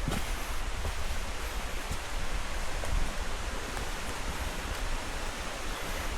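Steady rushing of a waterfall heard through the jungle, with an uneven low rumble of wind on the microphone underneath.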